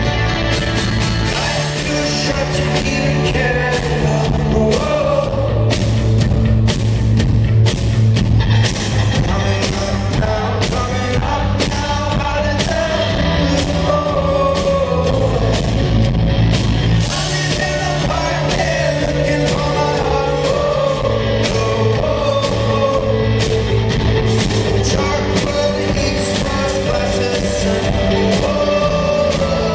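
Live rock band playing with a lead singer over a steady beat.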